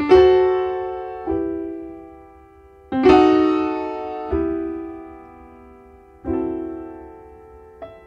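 Slow, quiet piano music: chords struck about every second or two, each left to ring and fade before the next.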